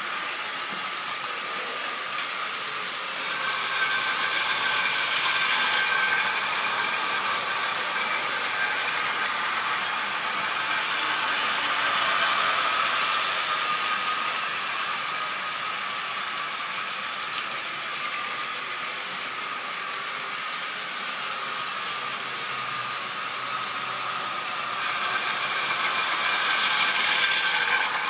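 Model railway trains running on a layout: long trains of wagons on several tracks at once, giving a steady mechanical running noise that swells around four to six seconds in and again near the end as trains pass close.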